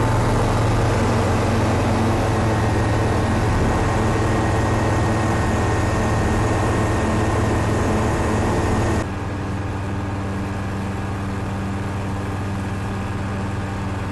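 Piston engine and propeller of a single-engine light aircraft, droning steadily as heard inside the cabin in flight. About nine seconds in, the sound drops abruptly to a quieter, duller drone.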